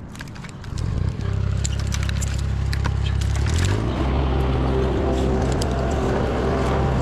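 Chainsaw engine coming up to speed about a second in and then running steadily at idle, with light clicks and knocks over it.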